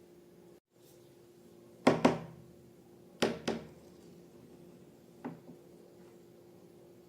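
Sharp thunks, as of hard objects being knocked or set down. A pair comes about two seconds in, a second pair about a second later, and a fainter single one around five seconds. A faint steady hum runs beneath them.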